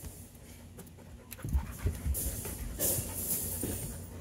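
A dog panting in short breathy bursts, with a few low thumps about halfway through.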